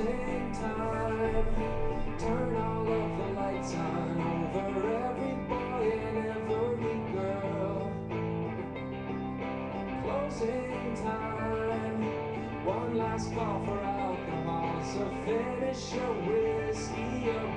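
Background music led by guitar, playing steadily.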